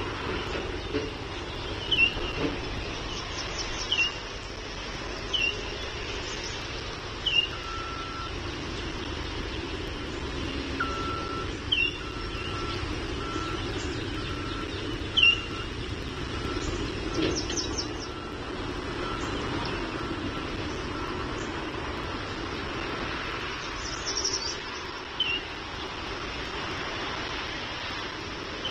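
Steady low rumble of distant traffic or machinery, with a bird giving short chirps every second or two. From about 8 to 22 seconds in, a faint electronic beeping repeats at one steady pitch, a little more than one beep a second.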